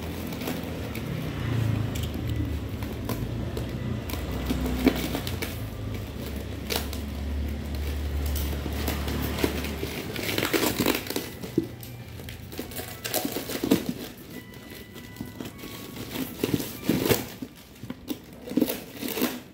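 Packaging being crumpled and handled: irregular crinkling and crackling, busiest in the second half. A low steady hum runs underneath for about the first half, then stops.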